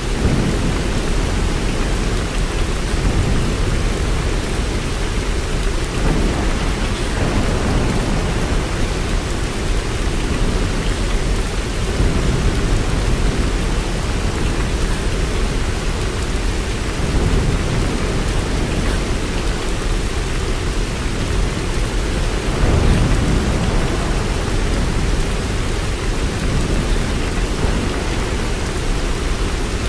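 Steady heavy rain with a low rumble underneath that swells now and then, as in a thunderstorm.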